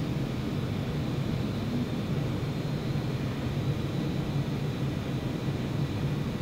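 Steady low mechanical hum with a faint, even high whine above it, unchanging throughout.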